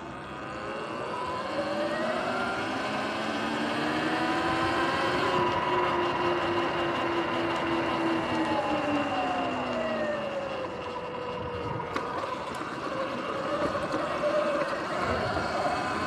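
Sur-Ron electric dirt bike's motor whine rising and falling in pitch with speed, over wind and tyre noise. The whine climbs during the first few seconds, falls away about ten seconds in, then climbs again near the end.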